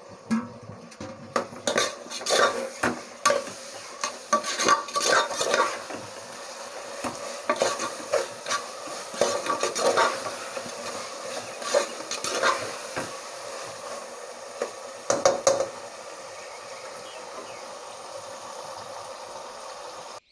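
Metal slotted spoon scraping and clinking against an aluminium pressure cooker, stirring chopped tomatoes frying in oil and masala, over a steady sizzle. The stirring comes in bursts and stops about 16 seconds in, leaving the sizzle alone.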